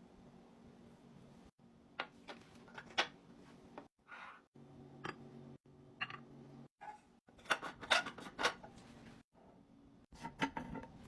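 Household items being handled and set down: scattered light taps and clicks, with a short rustle about four seconds in and a busier run of taps around eight seconds and again near the end, broken by abrupt cuts between clips.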